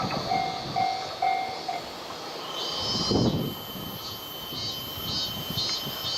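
Japanese railway level-crossing warning bell ringing its repeated electronic ding-ding, about two strikes a second, while a train runs over the crossing. There is a swell of wheel and rail noise around three seconds in.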